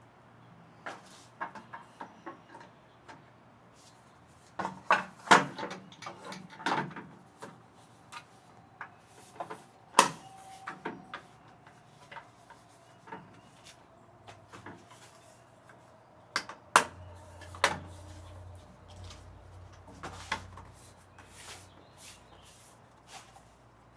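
Irregular clicks and knocks of hard objects being handled, with a few louder knocks, about five seconds in, ten seconds in and near seventeen seconds.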